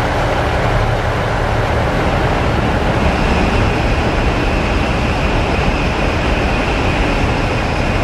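JR Central KiHa 85 series diesel multiple unit standing with its Cummins diesel engines idling: a steady low rumble. A faint steady high whine joins about three seconds in.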